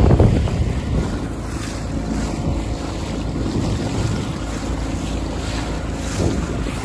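Wind buffeting the microphone and water rushing and splashing along the hull of a small inflatable boat under way, with a small outboard motor's steady hum underneath. Loudest at the very start.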